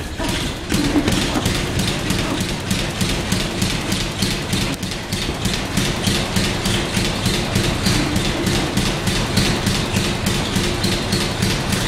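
Rapid, even tapping, about four a second, over a steady low hum.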